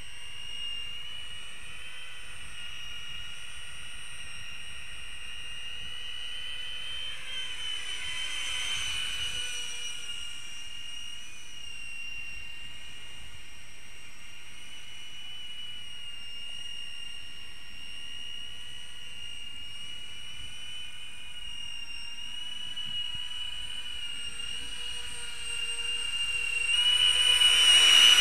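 High whine of the two electric ducted fans on a thrust-vectoring drone in flight, steady while it is far off. A falling sweep comes about eight seconds in, and the whine grows much louder near the end as the drone comes in close.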